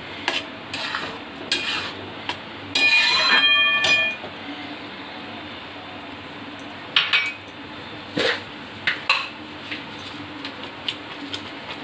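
Metal spatula scraping and knocking against a metal kadai while stirring semolina in milk and water. About three seconds in comes a louder, ringing scrape lasting about a second, then scattered clinks.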